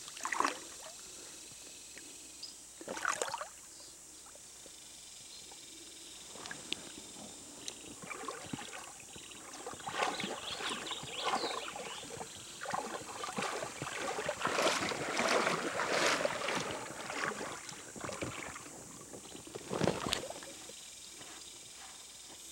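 River water sloshing and splashing around a person's legs as he wades through knee-deep water, in irregular bursts that grow busier about halfway through, with a sharper splash near the end.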